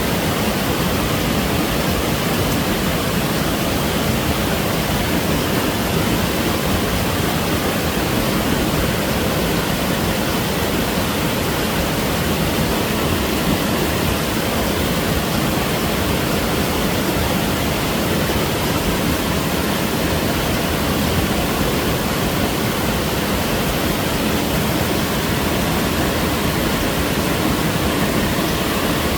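A small mountain waterfall pouring steadily over rocks into a valley stream, a constant full rushing of water with no breaks.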